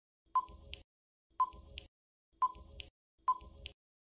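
Quiz countdown timer sound effect: a short pinging tick followed by a lighter click, repeating about once a second, four times.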